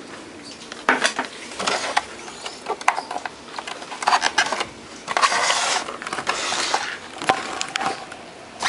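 A string of irregular knocks, clicks and short scraping rubs from handling the plastic case of a Toshiba CD/radio boombox while its power cord is plugged into the socket on the back.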